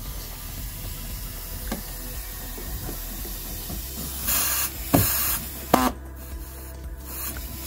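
Pneumatic air saw triggered in short bursts, each a loud hissing rush of compressed air with the blade buzzing against the sheet-metal panel: two bursts about four to five and a half seconds in, then a brief sharp one just before six seconds.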